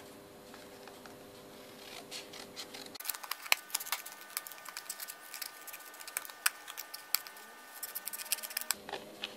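Small scissors snipping a thin cardboard paint sample card, trimming its edges. After a quiet start, a quick run of short snips begins about three seconds in and goes on until near the end.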